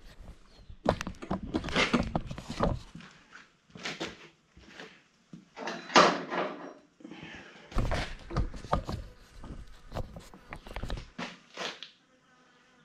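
Irregular knocks, clunks and scraping as chrome motorcycle trim and headlight nacelle parts are handled and worked loose by hand. The loudest clunk comes about six seconds in.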